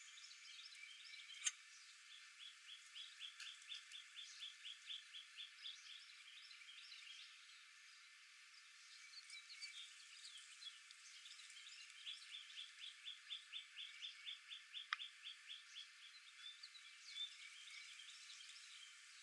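Faint outdoor chorus of wild animal chirps and calls. Twice a rapid run of evenly repeated notes, about four a second, lasts a few seconds. A sharp click comes about a second and a half in, and another near the end.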